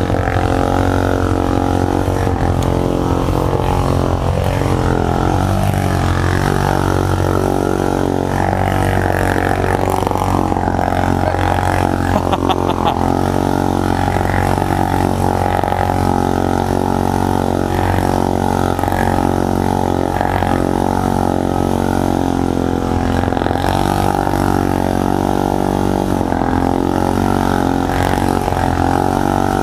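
Honda Rancher 420 ATV's single-cylinder engine running at low speed, mostly a steady idle with a few small rises and falls in engine speed.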